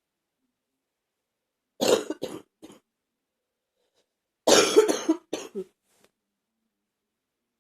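A person with a bad cold coughing in two short fits of three coughs each, about two seconds in and again after about four and a half seconds, the first cough of each fit the loudest.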